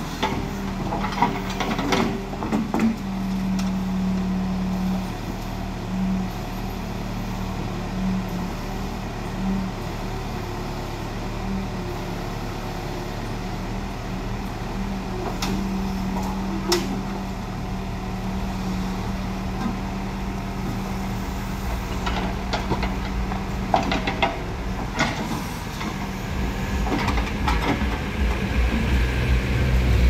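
Bull backhoe loader's diesel engine running steadily under load while it digs, with a few sharp knocks scattered through. A deeper, louder engine rumble builds up near the end.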